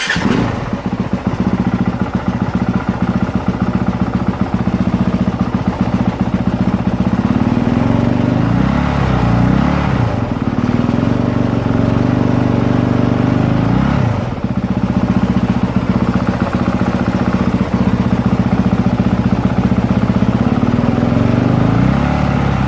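Honda CRF450R's single-cylinder four-stroke engine idling just after starting, its speed rising and falling a few times. It is running to charge the battery through the stator and warm up.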